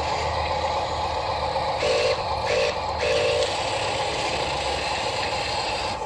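Radio-controlled toy cement mixer truck's electric motors and gears whirring steadily as it drives over dirt, with three short louder spurts of motor whine around two to three and a half seconds in.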